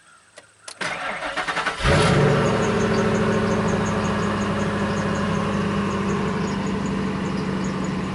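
Ford 5.4L Triton V8 in a 1999 F250 being cranked for about a second, catching just before two seconds in, then settling into a steady idle. The engine has been repaired for a surging, rough idle after its EGR valve was found faulty.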